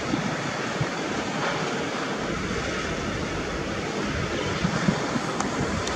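Steady distant roar of a Boeing 737-800's CFM56 jet engines as the airliner comes in on final approach, with wind buffeting the microphone in gusts.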